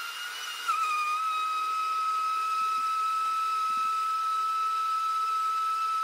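Countertop blender motor running at high speed while blending a thick protein shake, a steady high whine over a whirring hiss. The pitch dips slightly about a second in, then holds steady.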